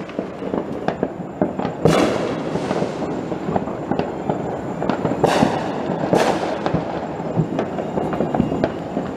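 Fireworks going off all around: a constant crackle of firecrackers, with three louder aerial bursts about two, five and six seconds in, each trailing off.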